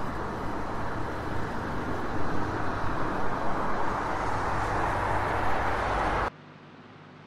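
Steady rushing outdoor background noise with a low rumble, like traffic or wind in an open-air location recording, that cuts off abruptly about six seconds in and gives way to a much quieter hiss.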